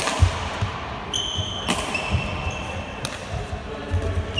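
Badminton rally: sharp racket-on-shuttlecock hits, three of them about a second and a half apart. Between the hits there are short high squeaks of trainers on the sports hall floor and low thuds of footsteps.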